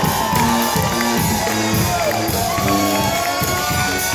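Live brass-led funk band playing: sustained horn lines over a stepping bass line and steady drums, recorded from within the audience.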